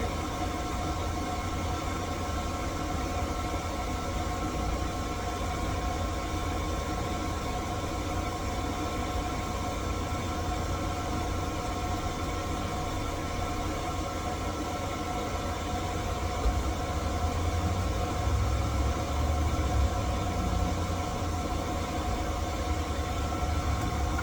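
Electric key-cutting machine running with a steady motor hum, its low rumble growing louder in the last several seconds.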